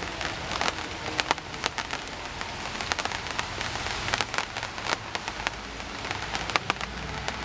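Rain falling, with a steady hiss and many irregular sharp drips hitting a hard surface. A faint low hum sits under it in the second half.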